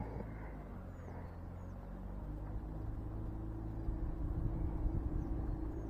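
Distant tour boat engine, a low steady drone that slowly grows louder, with a higher engine tone joining about two seconds in.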